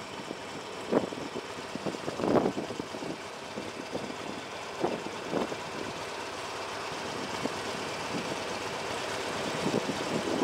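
Engines idling steadily in stopped city traffic at a red light, with a box truck close by. A few brief thumps sound in the first half.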